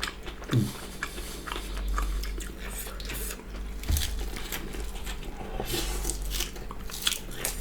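Close-up eating sounds: chewing and biting into boiled pork and vegetables, with scattered small crunches and wet mouth clicks.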